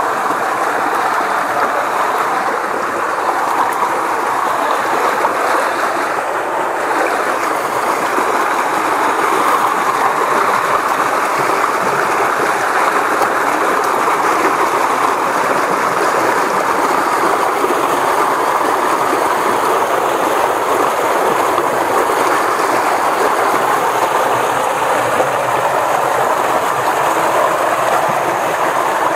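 Small muddy stream rushing steadily over a little cascade, a loud, continuous rush of water.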